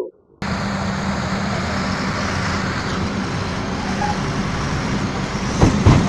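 Heavy diesel equipment engines running steadily, a low hum under loud even rushing noise that starts abruptly; a few louder knocks near the end.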